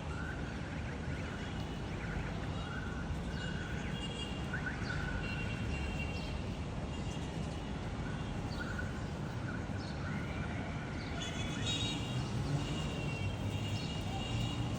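Birds chirping in short repeated whistles, more often in the last few seconds, over a steady low background rumble.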